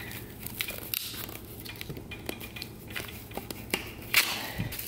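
Small metallic clicks and scrapes of pliers gripping and working a towel-wrapped boost valve sleeve stuck in a 4L80E transmission pump, with a brief rustle a little after four seconds in.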